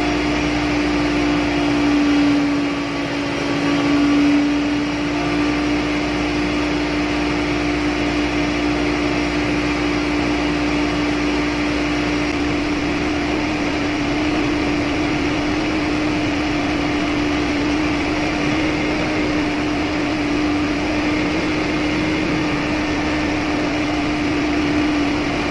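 Steady engine-room machinery drone: a continuous mechanical noise with a strong, steady mid-pitched hum. The deepest rumble eases about halfway through.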